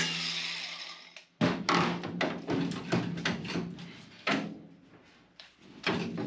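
Angle grinder winding down after a cut, fading out over about a second. Then a string of sharp knocks and clunks of metal being handled in the car's body, the loudest near the start of the run and another around the middle.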